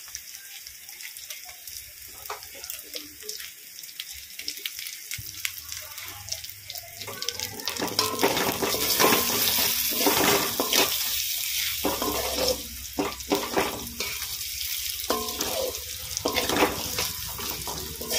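Onion masala sizzling in a kadai as fried boiled eggs are added and stirred in, with a spatula scraping and knocking against the pan. The sizzle grows louder about halfway through, with more scrapes.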